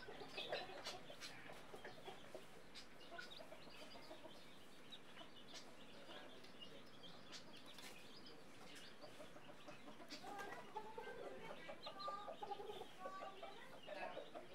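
Mother hen clucking to her chicks in short, repeated clucks, with the chicks' higher peeps among them. The calls come thickest near the start and again from about ten seconds in.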